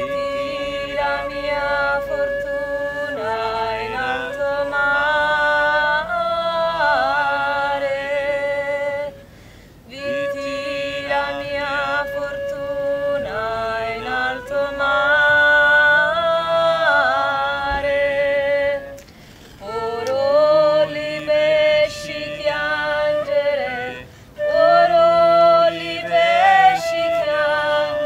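Soundtrack music: a voice singing long held, wavering notes without clear words, in phrases broken by a few short pauses.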